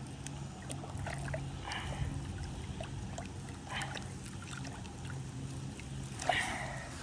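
Water splashing in short bursts, with small clicks and handling noises, as a hooked bass is landed from the pond bank.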